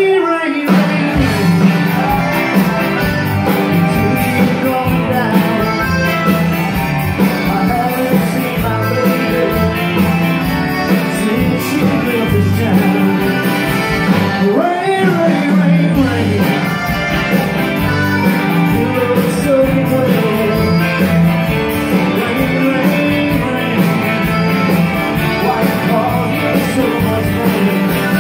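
Live Tex-Mex country-rock band playing loudly, with electric guitars, drums and a button accordion.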